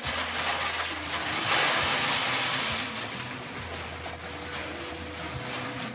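Pellet stove's electric blower motors running with a steady hum. Over it, a louder hissing noise swells for about a second and a half, starting about 1.5 s in.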